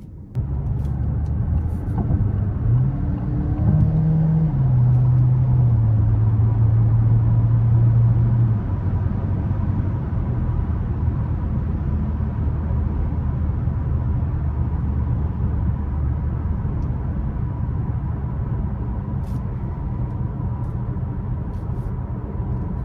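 DS 7 Crossback E-Tense 4x4's turbocharged four-cylinder petrol engine heard from inside the cabin, accelerating: its note rises, drops as the automatic gearbox shifts up about four seconds in, and holds steady. About eight seconds in the engine note fades into a steady drone of tyre and road noise at cruising speed.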